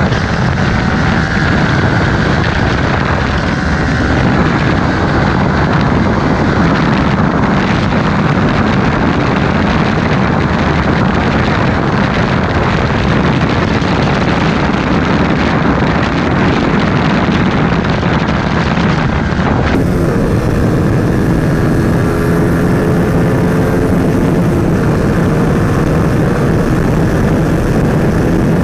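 Onboard sound of a Yamaha R15 V3's 155 cc single-cylinder engine accelerating hard up through the gears, with heavy wind rush over the microphone. About two-thirds of the way in it cuts abruptly to a KTM RC 200's single-cylinder engine running at speed, its engine note standing out more clearly under the wind.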